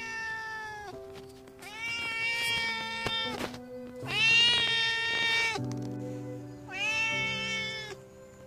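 A domestic cat meowing four times, long drawn-out meows of about a second each that drop in pitch at the end, calling for attention.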